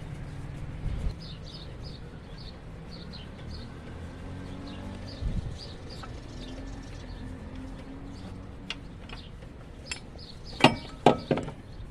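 A few sharp metallic clinks near the end, as the loosened engine bracket and tools knock together. Underneath, birds chirp and a low steady hum runs throughout.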